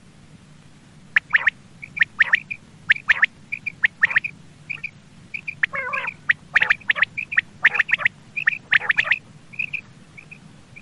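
Common quail calling over and over: short, sharp high notes in quick little groups, with a harsher, lower call about six seconds in.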